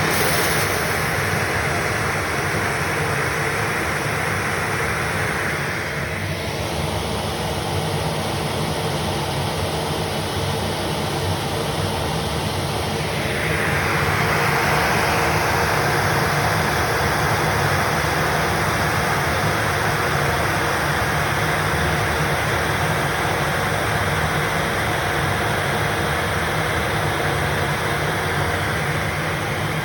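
CNC router running a sanding head over a wood slab: a steady, loud machine noise with a hissing, abrasive top. About six seconds in, the hiss drops a little, and it returns stronger from about halfway.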